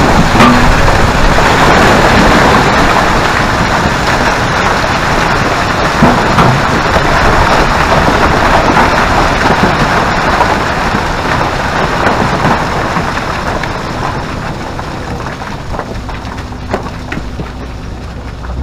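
Loose rock and rubble sliding and tumbling down a rock pile as an excavator bucket breaks into it, a dense rattling rush that slowly fades. A low engine hum comes in near the end.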